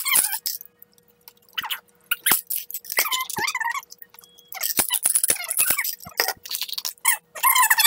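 Children chewing jelly beans with open mouths, the wet chewing coming and going in short bursts. A few sharp clicks and knocks come from the glass candy jar and its lid being handled.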